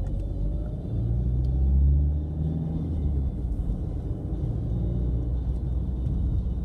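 Low, steady rumble of a car driving along the road, engine and tyre noise, a little louder for a second or so about a second in.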